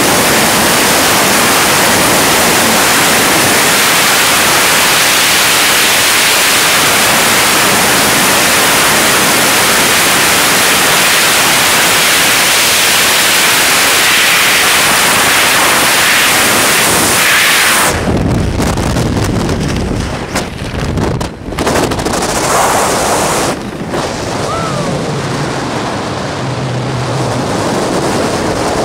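Freefall wind rush on the camera's microphone, a loud steady hiss. About eighteen seconds in it cuts off abruptly as the parachute opens, giving way to uneven, gusty wind buffeting under the open canopy.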